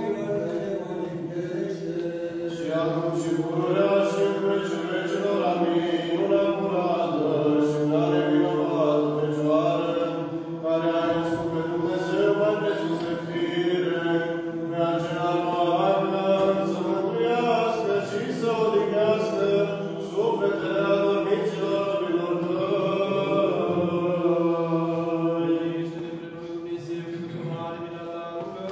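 Orthodox liturgical chant in Romanian, several voices singing together in long, slowly moving phrases over a held low note.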